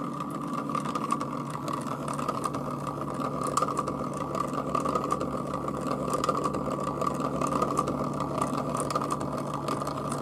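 Stepper motor driving a 3D-printed reduction gear at 45 rpm: a steady mechanical whine with a light gear-tooth rattle and a bit of vibration.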